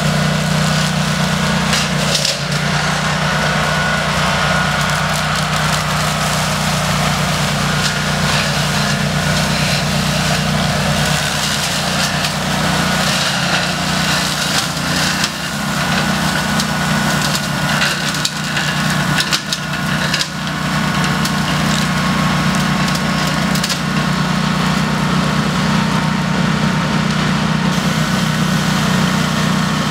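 DR Field & Brush Mower's 17 HP Kawasaki engine running steadily under load as the mower cuts through leaf litter and brush, with frequent crackling and snapping of sticks in the blade.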